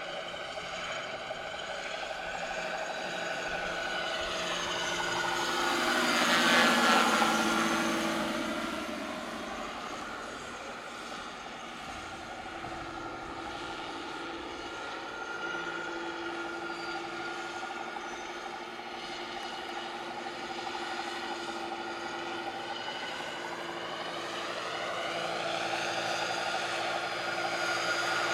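Large radio-controlled scale model of a Mil Mi-8 helicopter in flight: a steady whine from its drive and rotors. It swells as the model passes close about six to seven seconds in, drops in pitch as it moves away, and grows louder again near the end as it comes back toward the listener.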